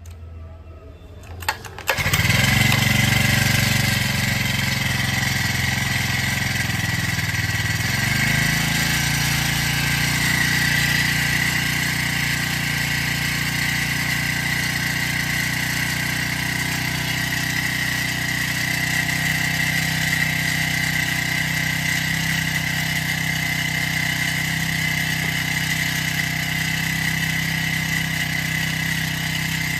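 A four-stroke brush cutter engine is pull-started and catches about two seconds in. It runs loudly, its note shifts about eight seconds in, and then it runs on steadily with a constant high whine.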